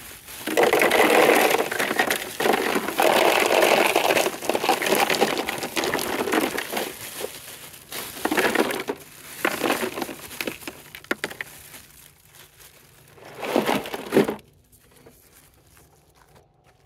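Ice cubes poured from a plastic ice bag into a Yeti hard cooler: the ice tumbles in and the bag crinkles. The sound runs loud and near-continuous for about the first six seconds, then comes in a few shorter bursts, the last about fourteen seconds in.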